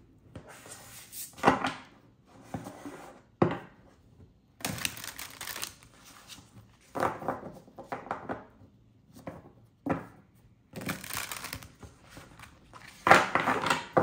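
A tarot deck being shuffled by hand: a series of short, irregular rustling bursts as the cards slide over one another.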